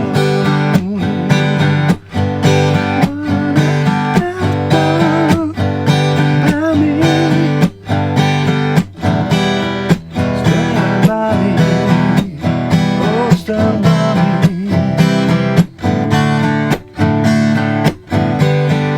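Acoustic guitar strummed in a steady driving rhythm, cycling through the chords E minor, C, D and G with a few short breaks between strums.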